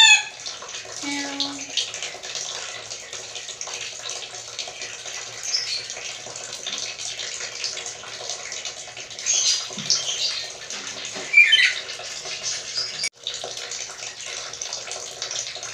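Black-capped lory giving a few cat-like mewing calls: an arched meow right at the start, then squeaky calls about nine to ten seconds in and a louder falling call a little after, over a steady rushing hiss.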